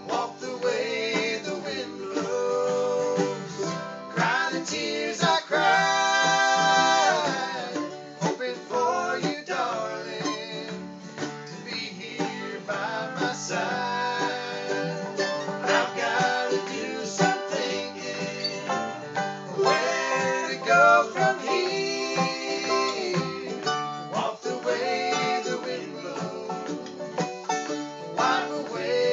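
Acoustic bluegrass band playing: banjo picking over acoustic guitar and mandolin, with a man singing lead at times.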